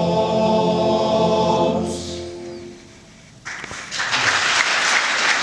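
Men's choir holding a sustained final chord that dies away about two seconds in; after a short pause, audience applause breaks out about three and a half seconds in and carries on.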